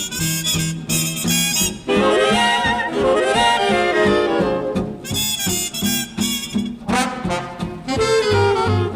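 Swing big-band instrumental break: brass and saxophones play short punchy chords and held ensemble lines over a walking bass and rhythm section, with no vocal.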